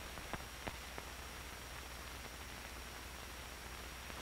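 Steady low hiss and hum of an old film soundtrack, with three faint clicks in the first second.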